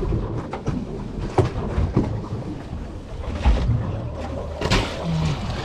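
Rumbling wind and water noise on a small fishing boat at sea, with irregular knocks and thumps on the deck and hull.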